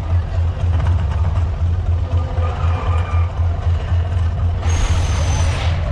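Mirage volcano show's eruption: a deep, steady rumble, with a hissing whoosh about a second long near the end as a flame burst goes up.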